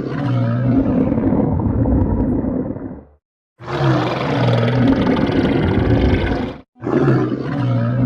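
Stomach growling, a loud low rumbling gurgle in stretches of about three seconds, each cut off abruptly and then repeated, as if one recording is looped.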